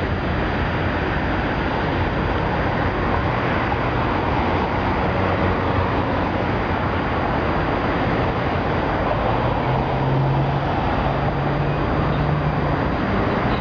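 Steady outdoor traffic noise. About nine and a half seconds in, a low engine hum comes in and grows stronger as a transit bus, a former Pace Orion, approaches the stop.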